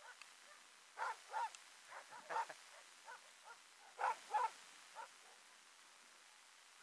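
Alaskan husky sled dogs barking: short barks, mostly in quick pairs, with fainter single barks between.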